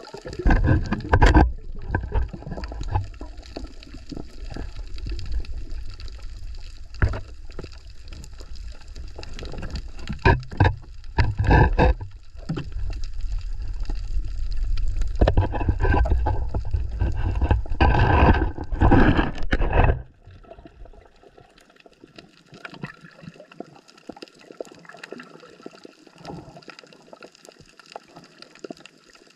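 Water splashing and sloshing in irregular loud bursts over a heavy low rumble, which drops away suddenly about twenty seconds in, leaving quieter gurgling and trickling.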